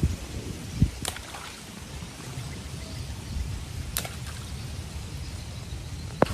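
Water flowing steadily under a low rumble, with a couple of sharp clicks about one and four seconds in.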